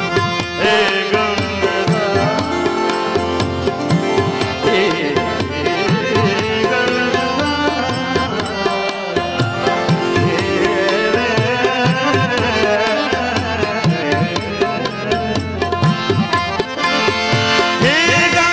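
Instrumental interlude of a live bhajan: tabla strokes keep a steady rhythm under a flowing melody played on a keyboard instrument, with no singing.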